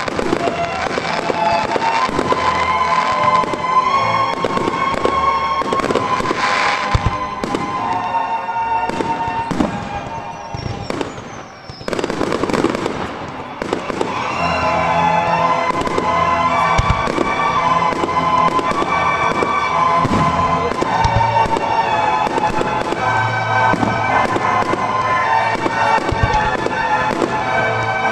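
Aerial fireworks going off in quick succession, sharp bangs and crackling bursts, over music playing throughout. The bangs briefly thin out and the level drops a little before the middle, then pick up again.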